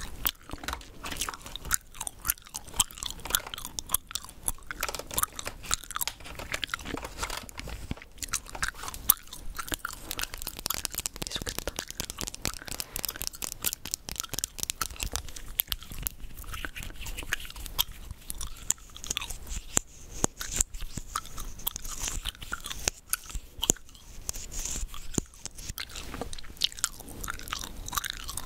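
Gum being chewed right at the microphone: a dense, uneven run of quick mouth clicks.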